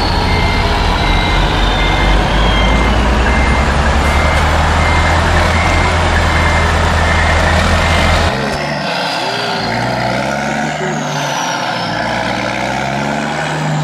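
Sound effect of a heavy truck's diesel engine running with a reversing alarm beeping steadily. About eight seconds in, the beeping stops and the engine sound changes to a lighter, wavering run.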